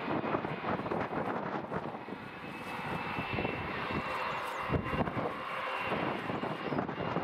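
Twin jet engines of a British Airways Airbus A319 running at taxi power, a steady rush with a thin high whine through most of it.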